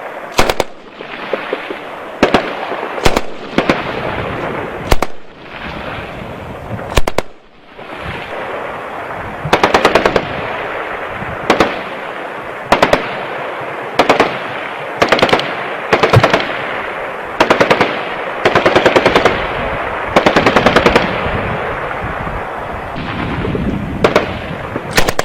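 M240B machine guns (7.62 mm) firing many short bursts of a few rounds each, plus a couple of longer bursts. The bursts come every second or two, with each report echoing on between bursts.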